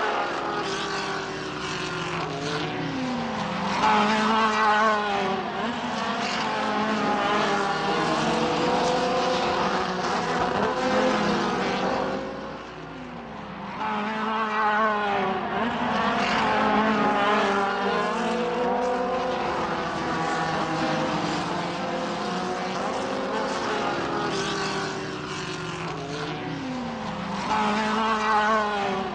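Formula race cars at racing speed passing one after another through corners, several high-revving engine notes overlapping, each falling in pitch as a car goes by and rising again as it accelerates away. Loudest about four seconds in and again near the end, with a brief lull a little before halfway.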